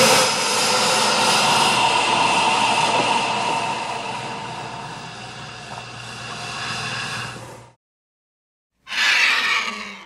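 Movie giant crocodile's roar sound effect: a long roar, loudest at first, that fades over several seconds and stops abruptly. After a second of silence, a short second roar comes near the end.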